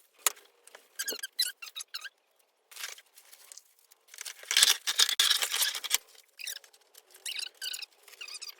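Irregular short squeaks, with a louder rustling, scraping stretch in the middle, from handling and assembling an animatronic clown prop.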